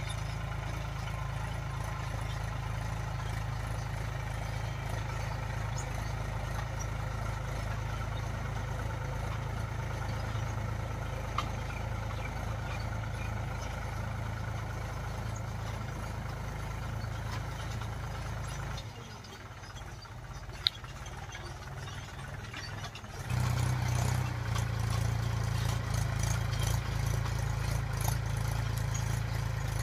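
Mahindra tractor's diesel engine running steadily under load as it pulls a cultivator. About two-thirds of the way through it drops quieter for a few seconds, with a single sharp click, then comes back louder.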